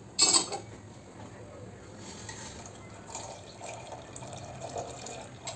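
Black tea water poured from a steel saucepan through a tea strainer into a pressure cooker of chickpeas: a steady trickle of liquid. There is a short clatter about a quarter second in.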